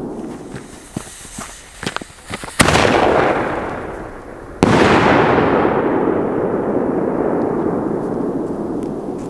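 Fireworks going off: a scatter of small sharp pops and crackles, then two loud bangs about two seconds apart, each followed by a long echo that slowly dies away.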